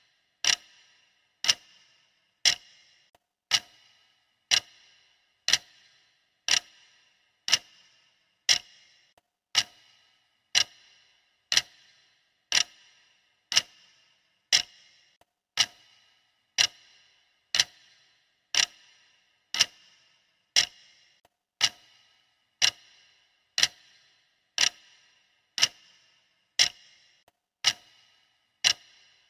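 Steady clock ticking, one tick every second, each tick a sharp click with a brief bright ring.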